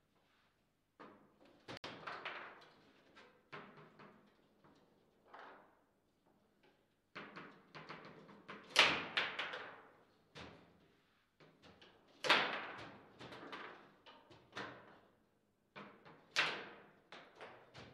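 Foosball table in play: the ball cracking off the plastic figures and table walls, and the steel rods knocking as they are snapped and spun, an uneven string of sharp knocks and thuds. The hardest hits come about nine, twelve and sixteen seconds in.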